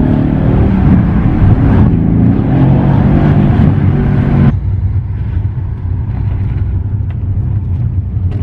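Mercedes-AMG C63 S's twin-turbo 4.0-litre V8 pulling hard in a short acceleration, its note climbing in pitch, heard from inside the cabin. About four and a half seconds in the engine note drops suddenly to a low, steady drone.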